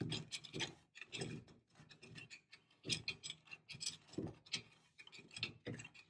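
Screwdriver scraping and picking dirt and grit out of an electrical outlet box, a run of short, irregular scratches and clicks.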